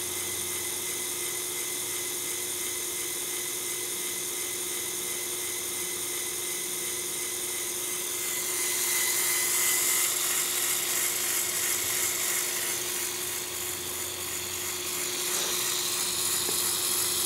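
Lego Technic 8258 crane truck's electric motor and plastic gear train whirring steadily as the crane works, running on dying batteries. About eight seconds in the whir grows louder and harsher and stays so.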